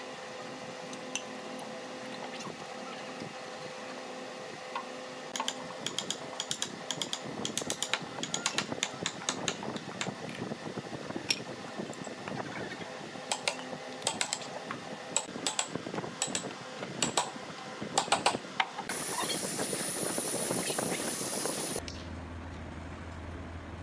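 Hand work on a wooden chair frame: scattered light clicks and knocks from about five seconds in, over a steady workshop hum. Near the end a steady hiss runs for about three seconds and cuts off suddenly.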